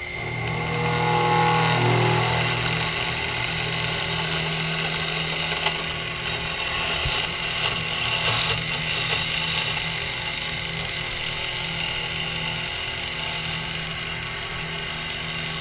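Sherline CNC mill drilling holes in an aluminium plate: the spindle motor runs steadily as the bit cuts. The sound swells over the first couple of seconds, then holds steady.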